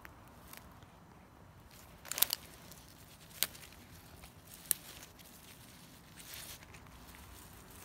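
Young stinging nettle stems snapping as their tops are broken off by a gloved hand, with leaves rustling. A quick cluster of crisp snaps comes about two seconds in, then single snaps about a second apart, and a brief rustle later on. The clean snap is the sign of young, tender shoots.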